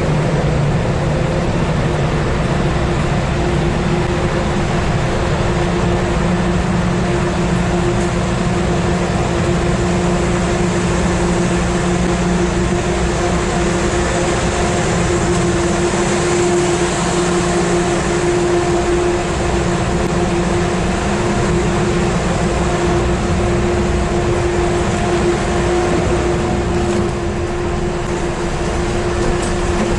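Ferry's engines and machinery droning loudly and steadily through the enclosed cargo deck: a constant deep hum with a steady mid-pitched tone over it.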